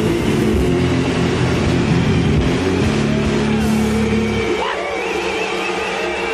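Live hip-hop band playing loudly, with bass guitar and drum kit. About four and a half seconds in, the low bass drops out, leaving only high wavering tones.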